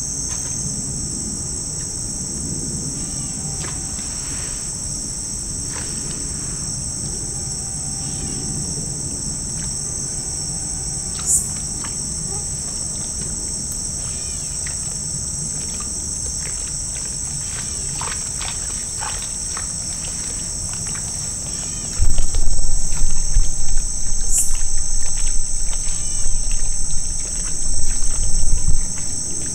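A chorus of insects droning steadily and high-pitched over a swamp at dusk. From about two-thirds of the way through, a loud, uneven low rumble of the camera being moved drowns out much of it.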